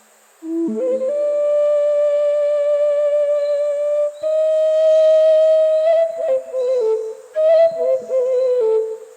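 Romanian caval, the long end-blown shepherd's flute, playing a slow doina lament. After a brief pause a note swells in and is held for about three seconds, steps up to a second held note, then breaks into ornamented phrases falling in pitch, with quick trills near the end.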